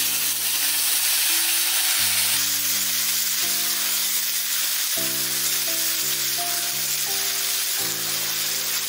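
Ground wet masala paste dropped into hot oil with fenugreek seeds in a kadhai: it starts to sizzle loudly the moment it goes in and keeps sizzling steadily as it is stirred with a metal spatula. Soft background music with slow chords runs underneath.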